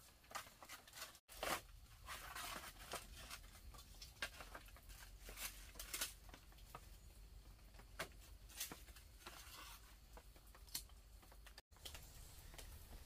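Faint, irregular taps, scrapes and rustles of objects being handled, with two sudden brief dropouts in the sound, about a second in and near the end.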